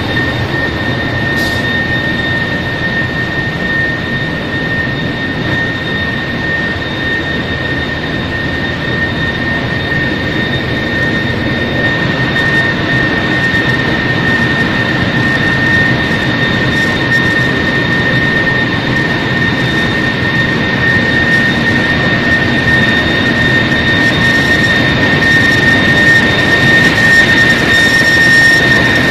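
Ship's engine room machinery running: a loud, steady mechanical din with a constant high-pitched whine over it, growing louder toward the end.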